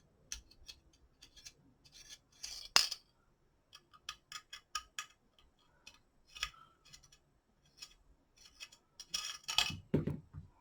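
Light metallic clicks and clinks of a two-piece quad rail and its screws being handled and lined up on a Kel-Tec PLR-16 pistol, irregular and scattered, with one sharper click about three seconds in and a cluster of clicks near the end.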